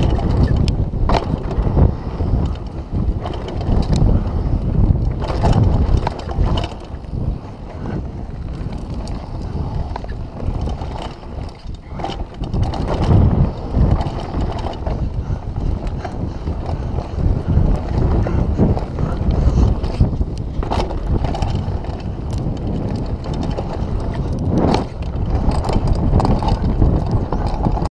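Downhill mountain bike ridden fast over a dirt trail: tyres rolling on dirt and the bike rattling with frequent clicks and knocks over bumps, under steady wind buffeting the microphone.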